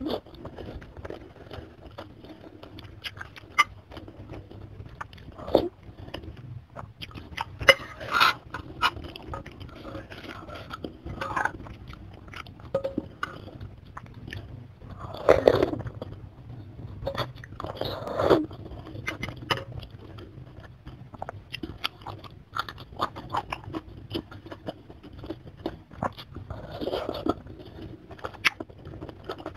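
Close-miked mouth sounds of a person eating chicken soto with chicken feet and glass noodles: wet chewing and biting with many small clicks, and a few louder bursts about a quarter and half way through.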